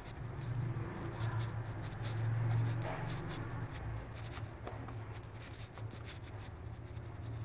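Hands pressing and rolling a ball of sweet roat dough between the palms: soft rubbing and scratching, over a steady low hum.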